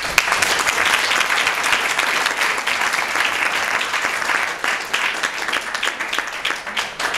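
A small audience applauding: dense clapping that thins out to scattered claps toward the end.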